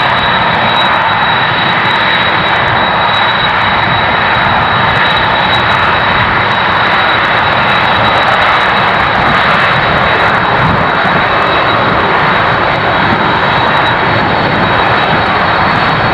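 Boeing 747-400 jet engines, General Electric CF6-80C2 turbofans, running at taxi power as the airliner rolls slowly: a steady loud rush with a thin high whine.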